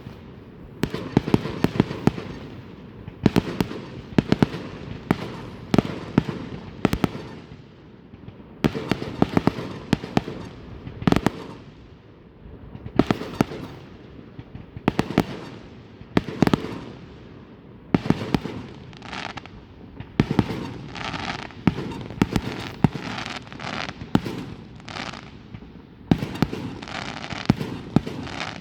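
Fireworks going off continuously: clusters of sharp bangs every second or two, some followed by crackling, fizzing tails.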